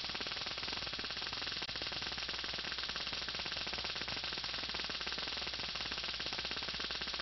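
Lakhovsky multiple wave oscillator sparking: a steady, rapid electrical crackle of sparks, many clicks a second, over a low hum.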